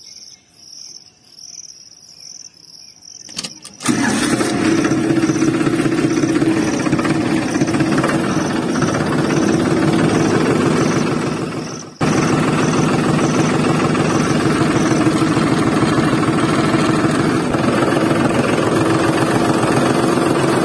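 Insects chirping in a steady rhythm. About four seconds in, a diesel tractor engine starts and runs with a steady chugging beat. It fades and cuts straight back in near twelve seconds.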